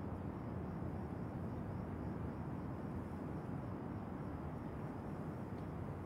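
Steady low rumble and hiss of city street ambience, with no distinct events.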